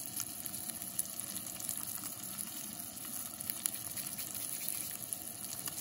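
Rainbow trout and trout fillets frying in butter in a cast-iron skillet: a steady sizzle with many small crackles scattered through it.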